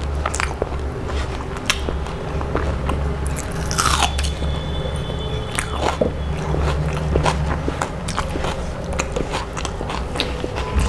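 A person chewing a mouthful of rice and crisp fried food, with many short, sharp crunches. A steady low hum runs underneath.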